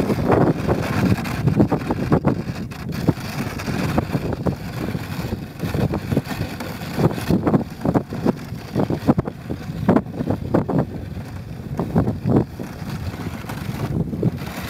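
Dog sled running fast over packed snow behind a team of Samoyeds: a steady rush from the runners, with frequent irregular knocks and rattles as the sled jolts over the trail, and wind buffeting the microphone.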